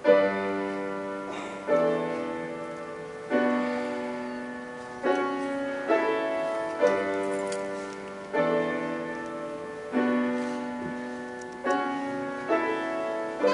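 Grand piano playing a slow instrumental passage between sung verses: a chord struck about every one and a half to two seconds, each ringing and fading before the next.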